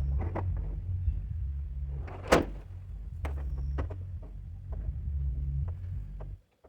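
Steady low machine rumble under scattered metallic knocks and clanks as a truck cab is hoisted off its frame, with one loud bang a little over two seconds in. The sound cuts out abruptly near the end.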